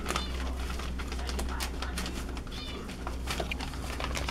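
Yorkshire terrier puppies, five weeks old, give short high-pitched squeaks twice, near the start and about two and a half seconds in, over scattered rustling and scratching on newspaper.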